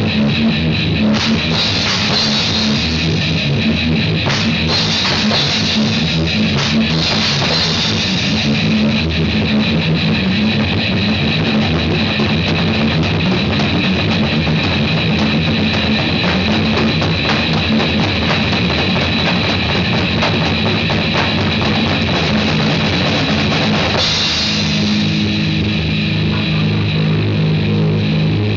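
Loud rock or metal jam on a drum kit and guitar, the drums and cymbals hitting constantly. The playing changes about three-quarters of the way through, with less cymbal wash and stronger low notes.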